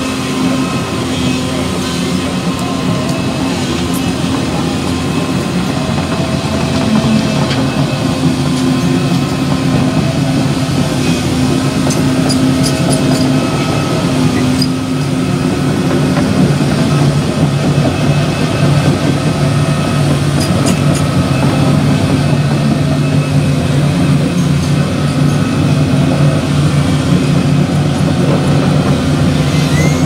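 Diesel engine of a Volvo tracked excavator running steadily, its note shifting lower about halfway through, with a few faint clicks.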